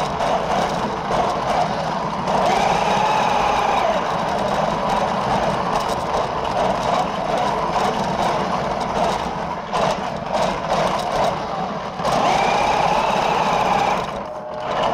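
RC drift car's motor running, with a whine that rises and falls twice, once a few seconds in and again after about twelve seconds, as the throttle is opened and let off.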